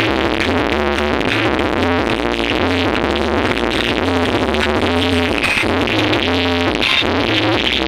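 Electronic dance music played loud through a parade sound system, with a heavy, steady bass under a synth melody.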